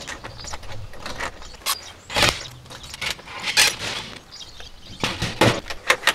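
Doorknob lockset being worked by hand: the knob turned and let go, the latch clicking in and out several times with small metallic rattles.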